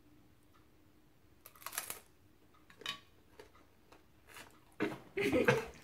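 A boy reacting to the burn of horseradish in his mouth. A few short, sharp hissing breaths are followed by a louder groan near the end.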